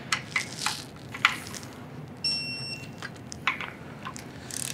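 A few sharp clicks of a torque wrench working a bolt, then a half-second electronic beep a little over two seconds in: a digital torque wrench signalling that the set torque of 18.4 ft-lb has been reached.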